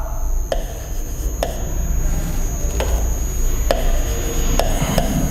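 Chalk writing on a blackboard: about six sharp taps as strokes are started, with faint scratching between them.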